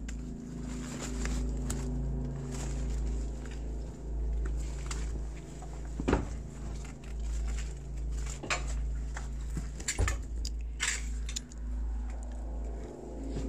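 Footsteps with scattered clinks and knocks, as of debris shifting underfoot, over a steady low rumble. The sharpest knocks come about six, eight and a half, ten and eleven seconds in.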